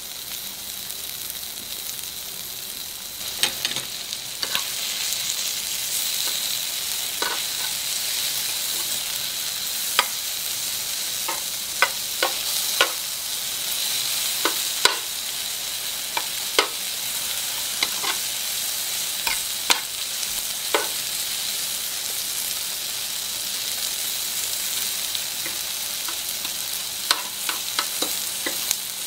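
Mushrooms and rice cakes frying on a rectangular grill pan in a steady sizzling hiss. Sharp clicks scattered throughout are the metal tongs tapping the pan as pieces are turned.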